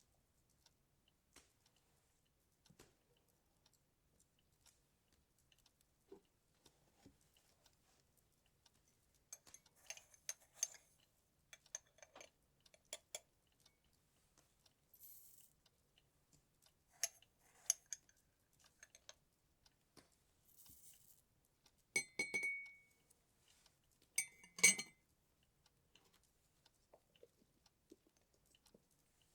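Cups, glassware and a spoon clinking and being set down while coffee with milk is made, in scattered light taps. One clink rings on briefly about two-thirds of the way in, and the loudest clink comes near the end.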